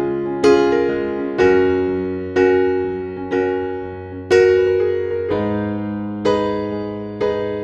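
Background music: slow keyboard chords in an electric-piano tone, struck about once a second, each ringing out and fading before the next.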